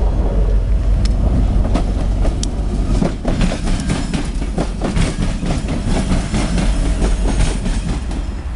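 CSX freight train rolling past, a steady low rumble with the wheels clacking over rail joints; the clacks grow thicker about three seconds in.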